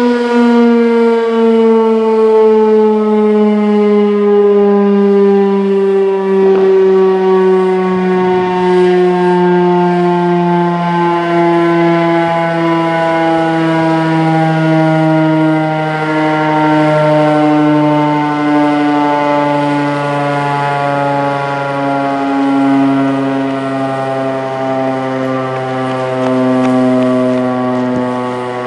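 Federal Signal STH-10A dual-tone rotating outdoor warning siren sounding its attack signal, its two-note chord gliding slowly down in pitch as the rotor slows, with a gentle waver in loudness.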